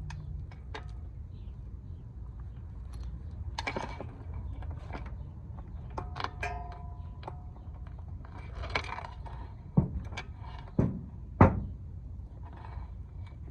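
Dirt bike drive chain being handled and looped back onto the sprockets by hand: scattered metal clinks and rattles, with three sharper knocks near the end, over a steady low hum.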